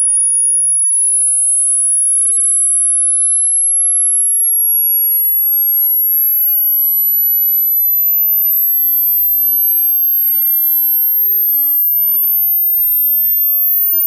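A pure sine test tone from a hearing-test frequency sweep, gliding slowly and evenly upward in pitch from about 10,500 Hz to about 14,000 Hz at a steady loudness.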